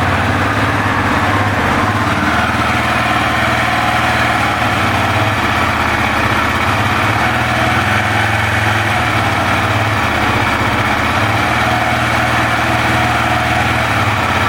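KTM 690's single-cylinder engine idling steadily.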